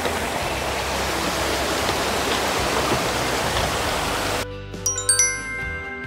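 Steady rushing of a mountain stream for about four seconds, then it cuts off and background music starts with high ringing notes.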